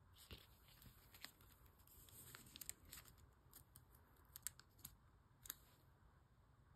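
Faint crinkling of plastic photocard sleeves, with a scatter of light clicks and ticks as cards are handled and slid into binder pockets, mostly in the first five and a half seconds.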